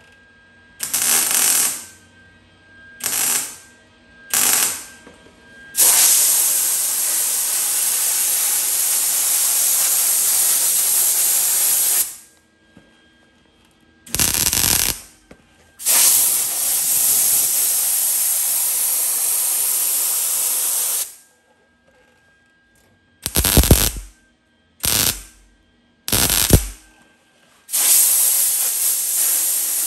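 MIG welder firing short spot welds, each a crackling burst of about a second, on the seam of an 18-gauge sheet-steel quarter panel, with the welder set at its hottest. Between the welds come long steady hisses from a compressed-air blow gun cooling the fresh welds so the panel does not warp.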